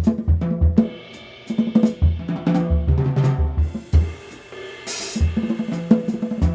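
Drum kit played busily: repeated low bass-drum thumps and pitched tom hits under snare and hi-hat strokes, with a cymbal crash about five seconds in.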